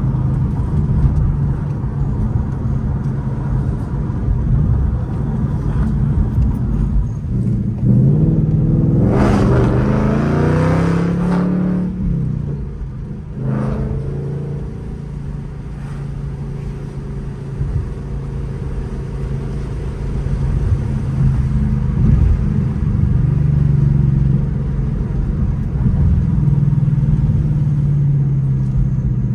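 The 5.0-litre V8 engine and exhaust of a 2023 Ford Mustang Mach 1, heard from inside the cabin while driving. About eight seconds in it revs up hard with a rising pitch under acceleration, then the pitch drops at the manual gear change. After that it settles into a steadier cruise with milder surges.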